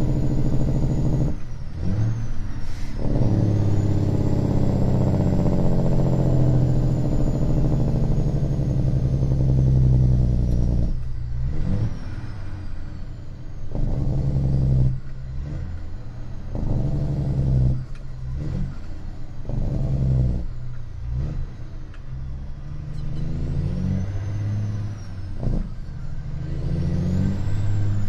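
Straight-piped 550 Cat diesel engine of an old Western Star truck, heard from inside the cab while driving. Its pitch rises and falls, with short breaks every few seconds as it moves between gears.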